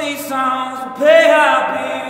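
A man singing long, held notes over acoustic guitar. A second, louder phrase comes in about a second in.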